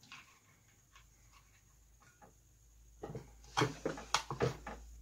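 Small wooden dowel pieces rubbed on sandpaper to clean up their cut ends: a quick, uneven run of short scratchy strokes starts about three seconds in, after a few faint clicks.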